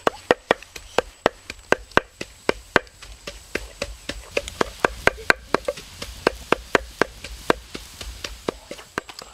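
Eggs boiling in a pan of water over a wood fire, rattling against each other and the pan in a quick series of sharp clicks, about four or five a second, steady at first and then more uneven.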